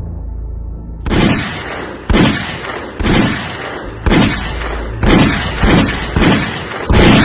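Dancehall sound system playing a deep bass line while a run of gunshot and explosion sound effects is fired over it, about eight sudden blasts roughly a second apart, each dying away quickly.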